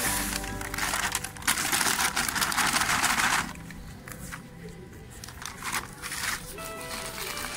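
Earthing compound pouring from a woven plastic sack into an earthing pit, a steady hiss for the first three and a half seconds, then the sack crinkling and rustling more quietly as the pour ends.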